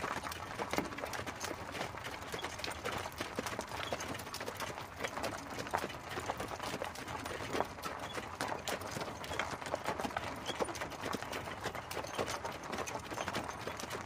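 Hooves of a pair of horses pulling an open carriage, clip-clopping steadily in a dense, uneven run of hoof strikes over a continuous rolling noise.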